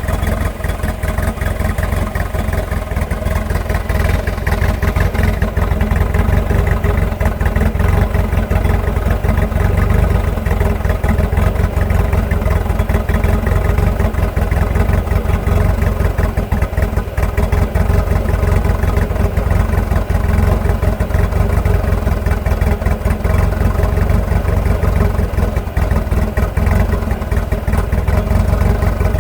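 1986.5 Nissan Hardbody pickup engine idling roughly, running throughout.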